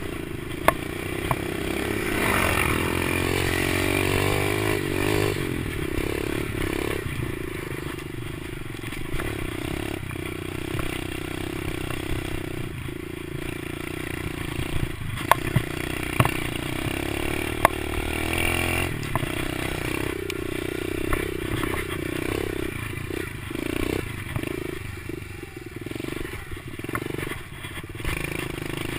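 Kawasaki KLX110 pit bike's small four-stroke single-cylinder engine running under throttle while being ridden, heard close up from the rider's seat, its pitch rising and falling as the throttle is opened and eased off. A handful of sharp knocks stand out, several close together about halfway through.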